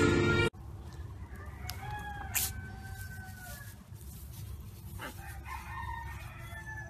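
Background music cuts off about half a second in. Then chickens cluck and call, some calls drawn out, over a low steady rumble, with a single click near the middle.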